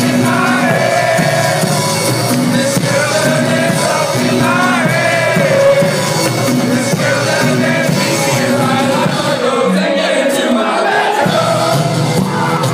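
A live band playing loud, with sung vocal lines over a steady low beat, heard from within the audience in a large hall. About ten seconds in, the bass drops out for a second or so and then comes back.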